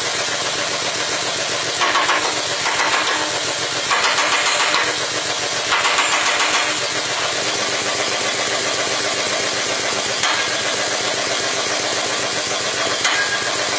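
Forging machinery running with a steady mechanical drone and hum. Louder hissing surges come about every two seconds during the first half.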